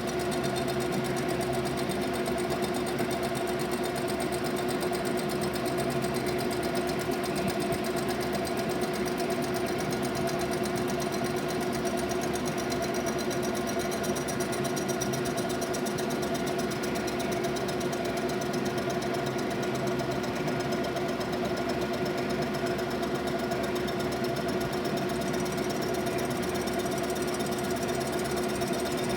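DeVlieg machine tool running steadily as it machines a Chrysler exhaust manifold: a constant mechanical hum with a steady tone, unchanging throughout.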